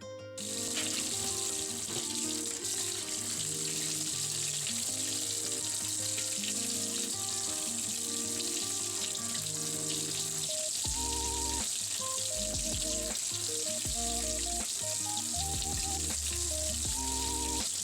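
Food sizzling steadily on the heat, with background music playing over it.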